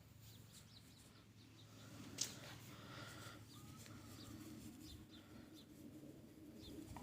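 Faint chirping of small birds, many short high chirps, with a single sharp click about two seconds in.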